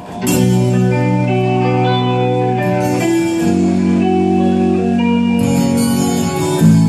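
Live rock band with electric guitars and keyboard starting a song loud, playing long held chords that change every two to three seconds.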